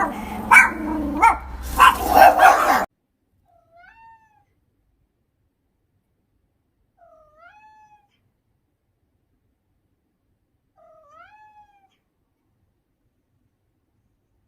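Loud animal cries for the first few seconds, cut off abruptly. Then a cat meows faintly three times, each a short rising-then-falling meow, about three to four seconds apart.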